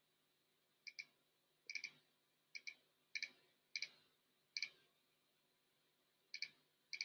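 Faint clicks of a computer mouse button, each a quick press-and-release pair, about seven at uneven intervals with a longer pause before the last two.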